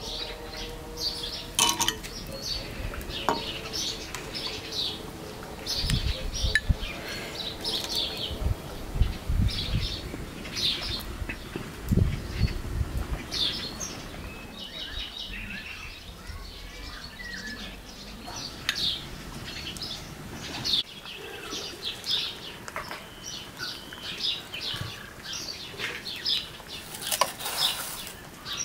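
Small birds chirping in short, repeated high calls throughout. There are a few low thumps in the middle stretch.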